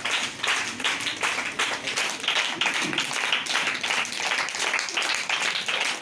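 A group clapping steadily together at a quick, even beat of about five claps a second, without a break.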